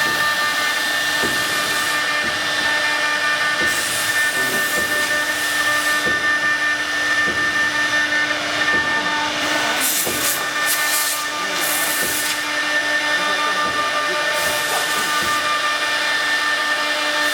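Woodworking CNC router running: a steady machine whine over a constant hiss, with faint irregular knocks and short bursts of sharper high hiss about ten seconds in.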